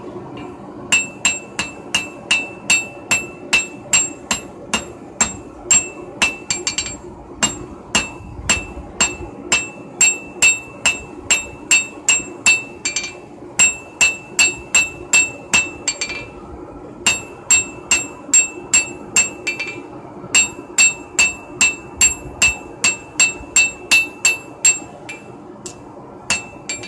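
Hand hammer forging red-hot steel on an anvil, squaring up a knife bar held in tongs. The blows come about three a second in several runs separated by short pauses, and each strike rings with a bright metallic tone.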